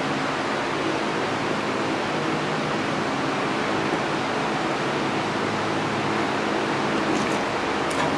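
Steady, even rushing noise with a faint low hum, like a fan or blower running without change.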